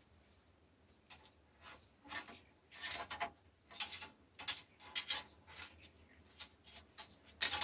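Scraping and rubbing of metal and plastic parts being worked loose from a dismantled LCD monitor panel: a run of short, irregular scrapes, the sharpest near the end.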